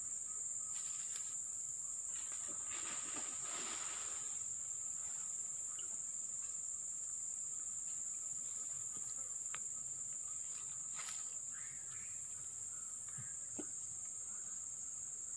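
Steady high-pitched drone of an insect chorus from the riverside forest, with a couple of faint brief rustles.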